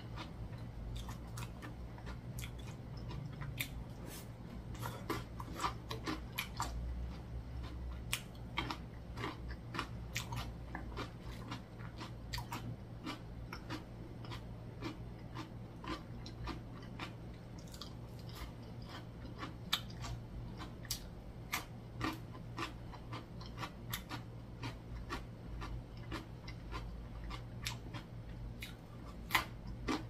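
A person chewing and biting food close to the microphone, with many short crisp crunches and mouth clicks throughout, over a low steady hum.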